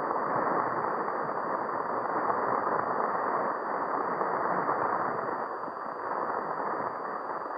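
Steady, muffled rushing noise with no clear high end that swells slightly, on an old 1951 radio transcription recording.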